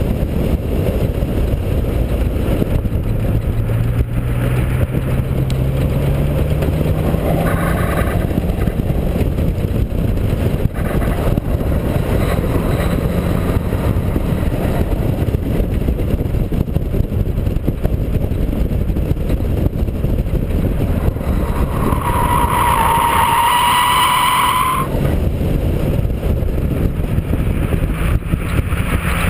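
BMW E36 328i's straight-six engine running at speed under heavy wind buffeting on the car-mounted microphone. The engine note climbs over the first several seconds. About 22 seconds in, the tyres squeal for about three seconds as the car slides.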